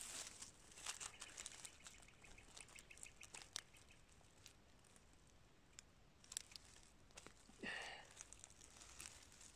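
Faint rustling and small clicks of dry pine needles and forest litter under gloved hands working at the base of a bracket mushroom on a stump, with one brief rising sound a couple of seconds before the end.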